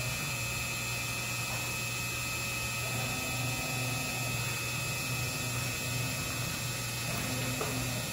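Breton NC300K26 CNC stone contouring machine running as its spindle head traverses along the bridge: a steady mechanical hum, with a higher drive whine that comes and goes several times.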